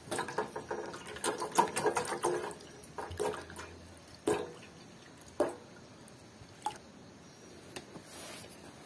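Water splashing and sloshing as a motorcycle thermostat is handled in a pot of hot water, then four separate drips or plinks about a second apart.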